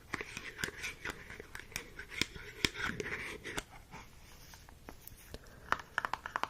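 Close-up handling sounds: many soft clicks and taps with a light rustling hiss, then a quick run of clicks near the end.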